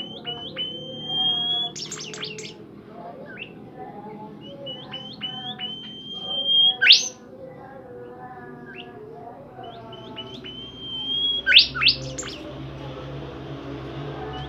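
Songbird of the kind Indonesian bird-keepers call 'Bimoli', singing hard ('gacor'). Three times, a run of quick rising chirps leads into a long, slightly rising whistle that ends in a few loud, sharp notes.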